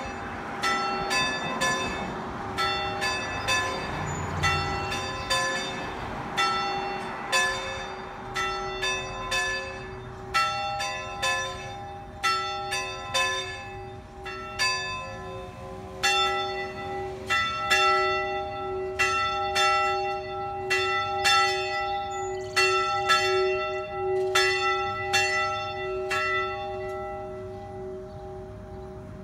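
Church tower bells being played, struck one after another at roughly two strikes a second on several different pitches, the notes ringing on and overlapping. The strikes stop near the end and the last ringing fades.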